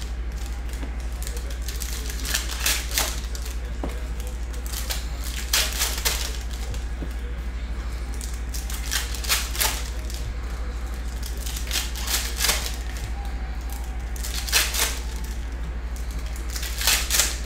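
Foil trading-card pack wrappers being torn open and crinkled in short crackling bursts, two or three at a time every few seconds, with cards slid out in between, over a steady low hum.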